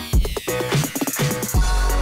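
Electronic background music with a steady drum beat and chords; a deep bass note comes in about a second and a half in.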